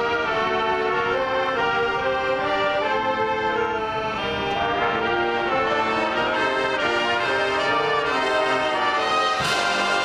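Marching band brass section playing sustained, shifting chords in a field show. A percussion crash hits near the end.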